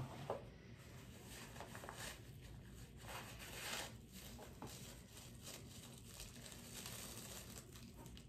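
Faint crinkling and rustling of plastic wrapping and bubble wrap as items are handled and unwrapped from a cardboard box, in irregular bursts.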